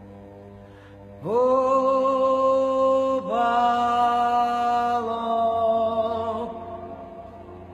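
A Georgian Orthodox priest's male voice chanting in long held notes. About a second in he scoops up onto a loud sustained note, then steps to another note and slides down. The phrase fades away near the end.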